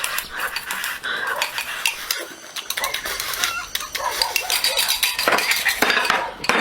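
Dishes and cutlery clinking, a busy run of quick clicks and knocks.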